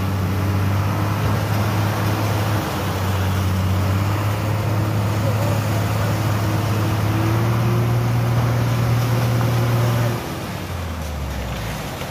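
Ready-mix concrete truck's diesel engine running steadily at raised speed while wet concrete is discharged down its chute. About ten seconds in, the engine drops to a lower, quieter speed.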